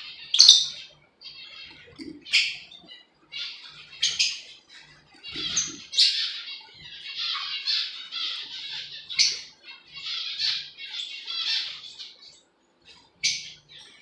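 Lovebirds chattering: a near-continuous run of high chirps broken by louder sharp squawks every second or two, with two dull thumps in the first half.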